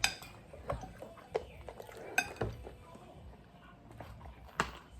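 Scattered clinks and knocks of dishes and cutlery during a meal, about half a dozen separate taps.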